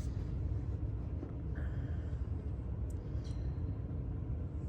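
Steady low background rumble with a few faint rustles.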